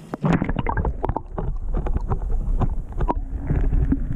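Water splashing and sloshing close to the microphone as a largemouth bass is lowered into the water and released. It starts suddenly a moment in and goes on as many irregular splashes over a low rumble.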